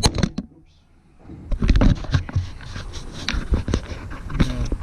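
Handling noise: a string of sharp clicks, knocks and scrapes, with a brief lull about half a second in before the knocking picks up again.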